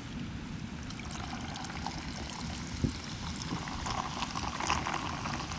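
Fizzy shochu highball being poured into a glass, the carbonation fizzing and crackling more and more strongly. A single sharp click a little under three seconds in.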